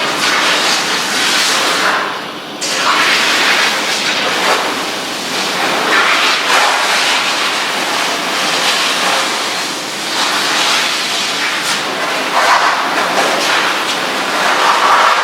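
Davis ProPet pet washer spraying a shampoo-and-water mix onto a small dog's coat: a steady rushing hiss of water that swells and eases. It drops away briefly about two seconds in.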